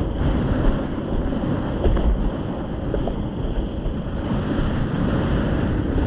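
Wind buffeting the microphone over a steady rush of water.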